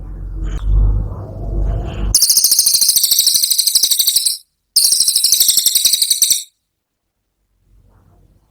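Cililin bird giving its 'tembakan' song: two loud, very fast high-pitched trills of about two seconds each, with a brief break between them. The trills are preceded by about two seconds of low, muffled rumbling.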